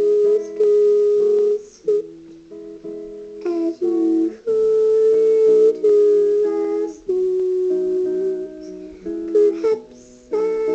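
Slow lullaby music on plucked strings, in phrases of held notes with short breaks between them.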